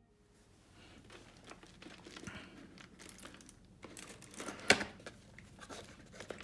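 Thin clear plastic shrink-wrap crinkling and crackling as it is pulled off a cardboard box, in irregular rustles with one sharp crackle a little past the middle.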